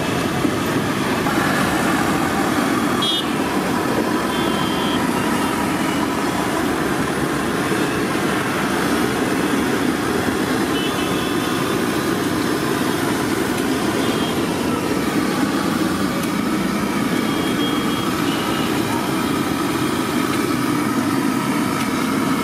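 Steady street traffic noise, with a few short car-horn toots now and then.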